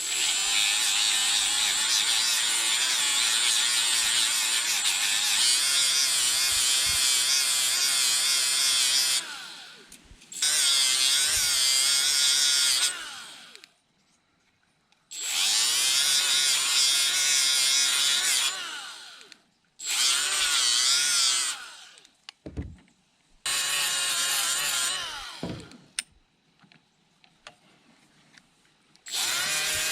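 Die grinder with a flat wheel running in six bursts of a few seconds each, its high whine wavering as it bears on the metal, with quiet gaps between. It is lightly cleaning discoloration off brake wheel cylinder parts without removing material.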